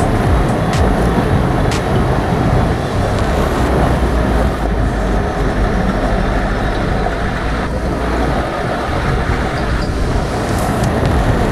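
Hyundai Terracan 4x4 driving on a rough track: a steady, loud rumble of engine and tyres, with two sharp clicks near the start.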